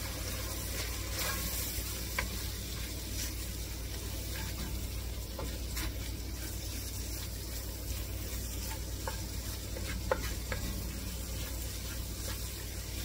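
Butter, onions, carrots and flour sizzling gently in an enamelled pot as a wooden spatula stirs and scrapes through them, with a few light taps. The flour is being cooked into a roux. A steady low hum runs underneath.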